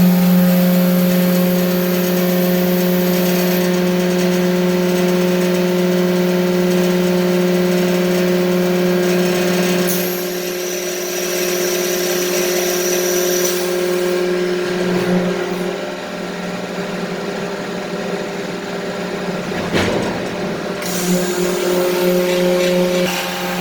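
Bliss 1,000-ton hydraulic forging press cell running: a loud, steady machine hum with several steady tones above it, typical of its electric motor and hydraulic pump. The sound changes about ten seconds in, and there is a brief noisy surge around twenty seconds in.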